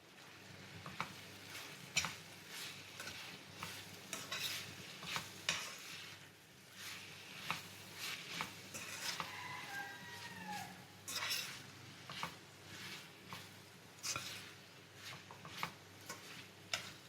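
Spoon stirring boiled beef mince into fried bitter gourd and spice masala in a cooking pot, with irregular scrapes and taps of the spoon against the pot.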